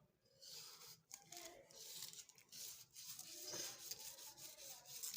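Faint rubbing and scraping from handling and cleaning a Zegana Sport 9mm pistol, with a few light knocks.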